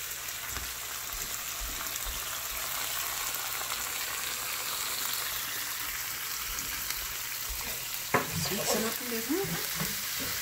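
Vegetables sautéing in hot oil with sauce and a splash of water, sizzling steadily in the pan, with a sharp knock about eight seconds in.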